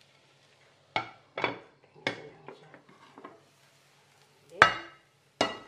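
A ceramic plate and a frying pan knocking and clinking together as a potato omelette is turned out of the pan onto the plate. It is a run of about eight sharp clatters, with the loudest near the end.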